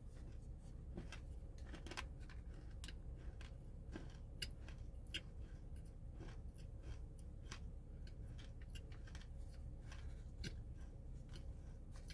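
Close-up crunching of something hard and crisp being bitten and chewed: irregular sharp crunches and clicks, a few a second, fairly quiet.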